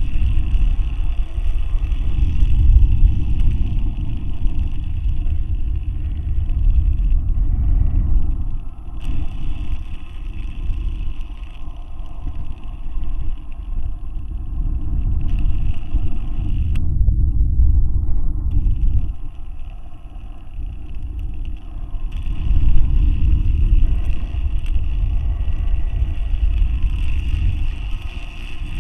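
Steady low rumble on the onboard camera of a high-altitude balloon payload. A fainter higher hiss cuts out and back in abruptly several times.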